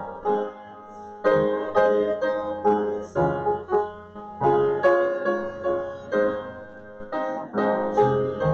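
A hymn played on piano, struck chords in a slow, even rhythm, with short pauses between phrases.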